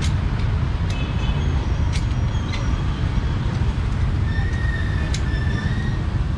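Busy street ambience: a steady low rumble of traffic, with scattered sharp clicks and knocks and a few short high-pitched tones over it.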